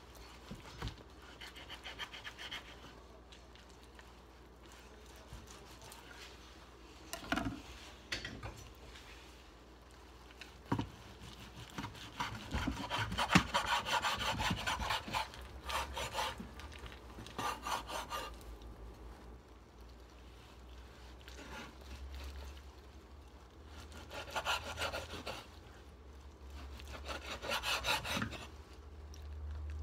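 Large kitchen knife sawing back and forth through a slab of raw bacon on a wooden cutting board. It comes in bursts of quick rasping strokes, with a few sharp knocks of the blade against the board.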